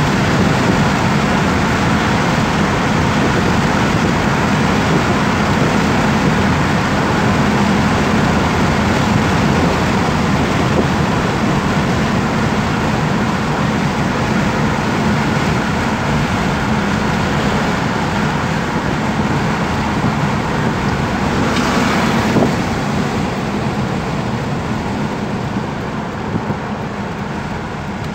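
Car driving at highway speed, heard from inside the cabin: steady tyre-on-road rumble and engine drone. A brief louder rush comes about 22 seconds in, and the noise eases off near the end as the car slows for a toll plaza.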